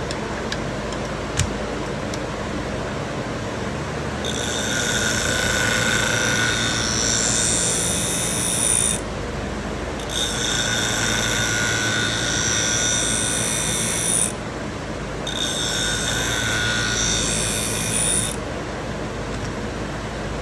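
Twice As Sharp scissor-sharpening machine running with a steady hum. A scissor blade is ground against its spinning wheel in three passes, each a few seconds long, giving a high grinding hiss with a steady whine.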